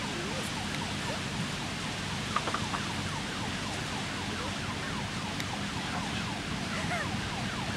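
Heavy fire engine's engine running steadily with a low drone and an even hiss, with many short falling chirps over it.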